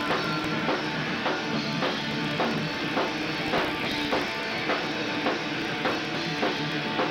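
Hardcore punk band playing live, the drum kit carrying the music with a steady beat of somewhat under two hits a second.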